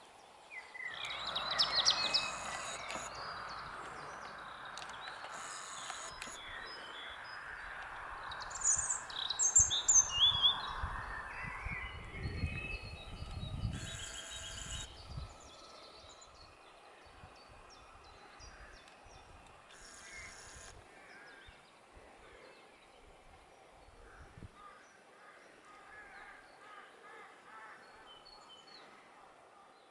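Birds singing and calling outdoors, over a steady rushing noise that fills the first dozen seconds and then drops away to quieter background.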